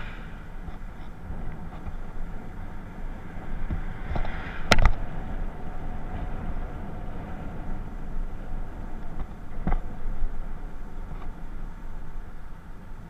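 Aprilia SR 125 scooter riding along at steady speed: its single-cylinder engine runs under a steady low rush of wind and road noise. Two sharp knocks cut through, the louder about five seconds in and another near ten seconds.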